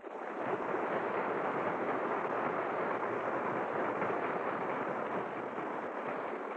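A steady rushing roar that starts suddenly and holds level, a radio sound effect.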